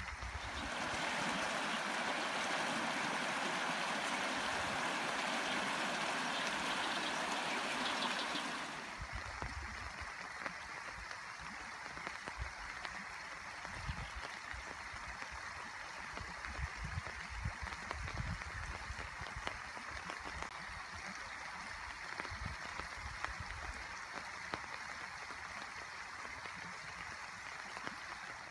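Steady rush of running water, louder for roughly the first eight seconds and then softer, with scattered low thumps over it.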